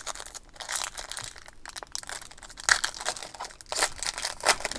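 Crinkling and tearing of a foil trading card pack wrapper as a pack of baseball cards is opened, in a run of irregular crackles and rustles.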